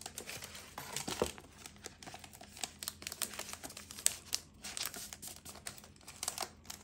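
Crinkling and rustling of clear plastic sticker packaging and paper as sticker sheets are slid in and out and handled, in a run of small irregular crackles.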